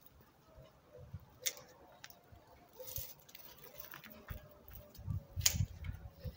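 Hand pruning shears snipping thin peach branches: a couple of sharp snips, about a second and a half in and again near the end, with low bumps from handling around the second one.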